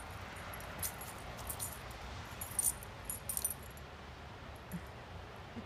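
A dog's collar tags jingling in short, light clusters as the dog lunges and snaps at falling snowflakes, over a steady outdoor hiss.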